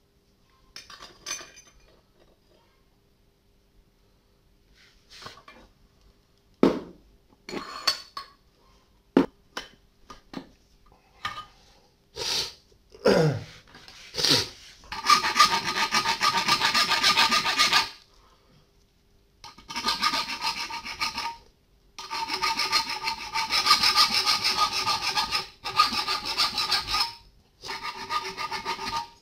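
Scattered metal knocks and clatter as a steel rebar is set in a bench vise, then a hand file rasping back and forth across the clamped rebar in runs of a few seconds with short pauses, the rebar ringing under the strokes.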